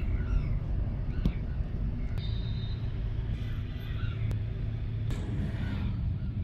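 Steady low rumble of road and engine noise from a vehicle in motion, heard from inside, with a few faint light clicks.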